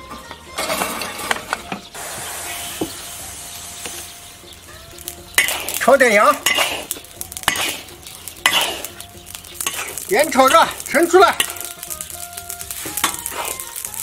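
Long metal spatula stirring and scraping coarse salt around a large iron wok, the grains rasping against the metal, as the salt is dry-fried hot for salt-baking.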